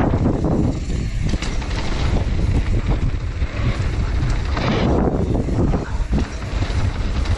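Wind buffeting the camera microphone over the rumble and rattle of a mountain bike rolling fast down a dirt trail, with a few short knocks from the bike.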